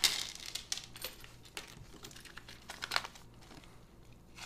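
Small metal frame screws tipped out of a plastic hardware bag onto a cutting mat: a burst of plastic crinkling and metal clinking at the start, then a few separate clicks as the screws are moved about.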